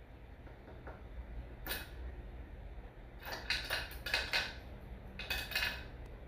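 A few short scraping handling sounds over a steady low hum: one about two seconds in, a cluster of several in the middle, and another near the end.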